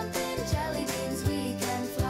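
Background children's music with a steady beat.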